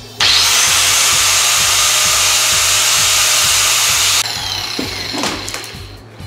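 Cutoff tool's abrasive wheel cutting through a braided steel oil hose: a loud, steady grind that stops abruptly after about four seconds.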